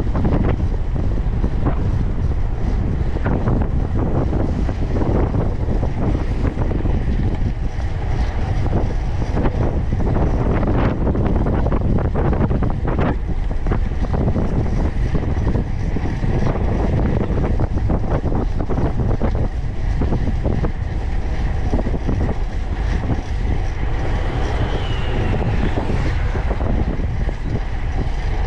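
Wind buffeting the microphone of a camera on a moving fixed-gear bicycle: a steady, loud low rumble, with road noise and frequent small clicks and rattles from the bike.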